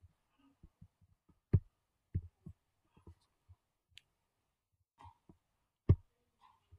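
Scattered short clicks and soft knocks from a computer mouse being clicked. The two loudest come about a second and a half in and just before the end.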